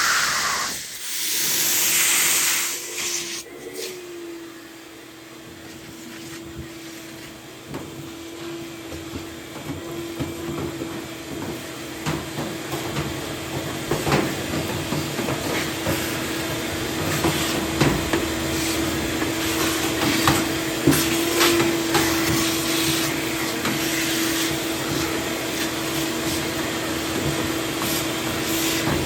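Vacuum cleaner running steadily with a one-pitch hum, sucking years of built-up lint out of the bottom of a gas dryer, with scattered irregular clicks.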